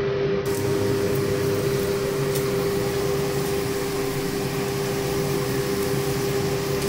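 Steady electric motor hum with one strong unchanging tone, and a few faint clicks.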